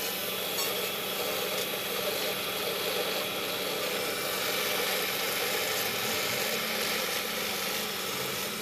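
Pillar drill press running with a steady motor hum, its spindle tool working against a truck clutch disc that is turned slowly by hand, giving a steady grinding noise.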